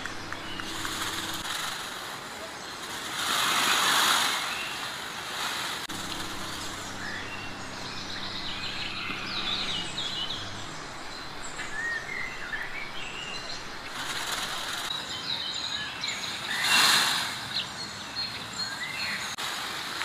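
Birds chirping in short, scattered calls over a steady outdoor background hiss, with two louder swells of rushing noise, one about four seconds in and one near the end.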